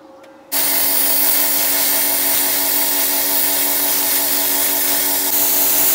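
Air plasma cutter with a built-in air compressor (a CUT 60) cutting metal. It starts about half a second in as a loud, steady hiss over a steady hum.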